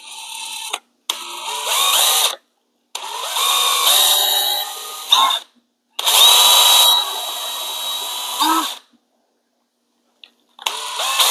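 Cordless drill boring out the plastic mounting posts of a grille letter with a slightly larger bit. It runs in five short bursts with brief pauses between them, its whine rising in pitch as each burst starts and then holding steady.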